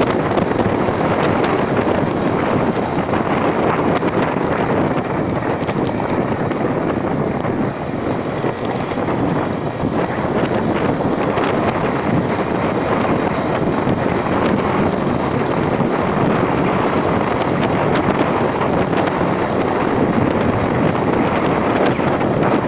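Wind buffeting the microphone in a steady, loud rush, as from riding in the open air.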